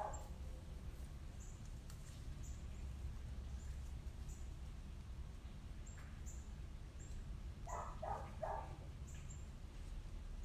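A steady low hum with short faint high chirps about every second, and a brief mid-pitched cluster of sounds about eight seconds in.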